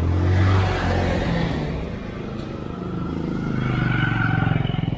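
Motor vehicles passing on the road, engine hum and tyre noise swelling about half a second in and again about four seconds in.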